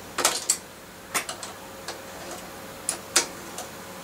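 Hand tools clicking and clinking against a mountain bike's metal parts while he works to free the gear cable: about ten sharp, irregular clicks.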